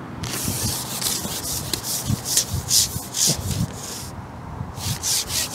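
Garbolino UK1 Evo 16-metre carbon pole being shipped out, its sections rubbing as they slide through the hands in a run of short, irregular strokes. The strokes pause about four seconds in, then start again.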